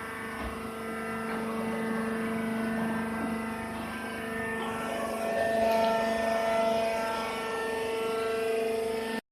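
Baling machine running, a steady mechanical hum with several held whining tones that cuts off abruptly at the end.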